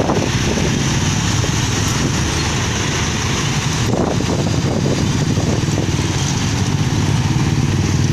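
A light truck and several motorcycles running close by as they move off slowly in a line, their engines making a steady, loud mix.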